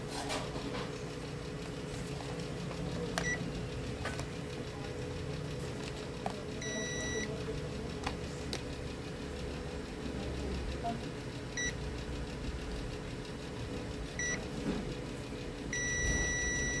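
Digital multimeter in continuity/diode-test mode beeping as its probes touch the TV power supply's rectifier diodes: several short blips and two longer steady beeps, the longer one starting near the end. A steady beep is the meter's sign of a short, and two of the rectifier diodes prove shorted. Faint probe clicks and a low steady hum sit underneath.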